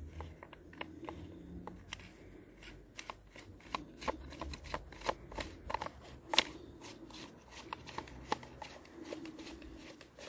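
Hands working the grey plastic air-filter cover of a Demon CS-2500 top-handle chainsaw and turning its retaining knob: a faint, irregular string of light plastic clicks and taps.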